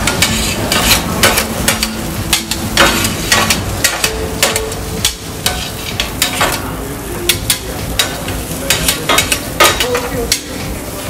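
Long steel paddles scraping and clacking on a large round flat-top griddle as a cook pushes and tosses stir-fry, in many quick irregular strokes over food sizzling on the hot plate.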